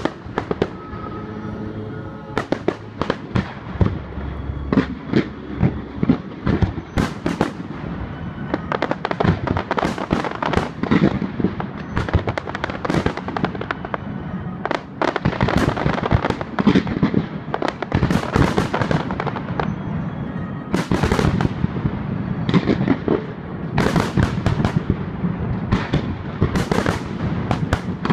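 Fireworks display: a dense, irregular run of shell bursts and crackling reports, many overlapping, with music playing along.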